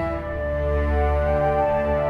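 Slow cinematic background music of long held notes over a steady low bass.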